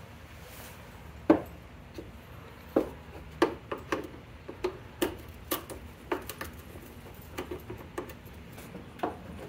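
Plastic push-in plugs being pried with a small screwdriver and wiggled out of a plastic shield behind a truck bumper: a string of irregular sharp clicks and plastic snaps, the loudest a little over a second in.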